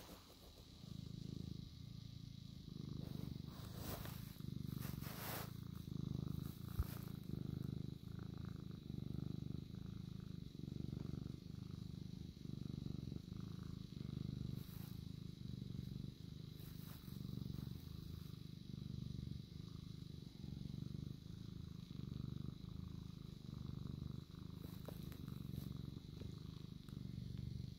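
Domestic cat purring close to the microphone: a low, continuous rumble that swells and eases with each breath, about once a second.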